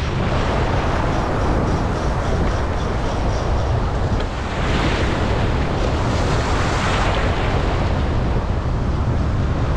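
Strong wind buffeting the microphone in a steady low rumble over the wash of choppy water. A faint fast ticking runs through the first few seconds.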